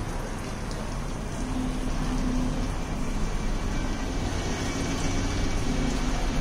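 Steady splashing of water from a tiered stone fountain, with a low hum underneath.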